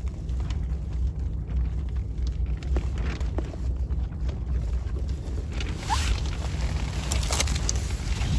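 Strong wind buffeting the microphone, a steady low rumble, with a few faint clicks and a short high chirp about six seconds in.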